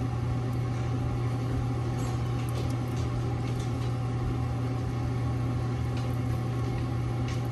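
Wood fire burning in a wood stove's firebox, with a few faint crackles over a steady low hum.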